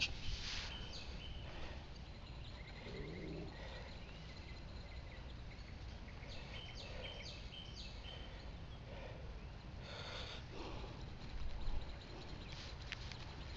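Quiet outdoor ambience: a steady low rumble with a few groups of short, high bird chirps, one group around the middle and another near the end, and a brief rustle about two-thirds of the way through.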